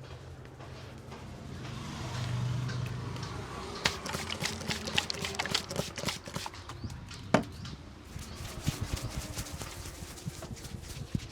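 Hands tapping and slapping on a scalp during a barber's head massage: a quick, irregular patter of soft strikes that starts about four seconds in, with one sharper snap a few seconds later. A low hum sits underneath at the start.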